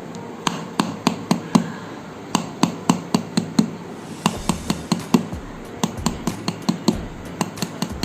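Handheld massage hammer tapping rapidly on the body, sharp even knocks about three to four a second in two runs with a brief pause just after three and a half seconds in.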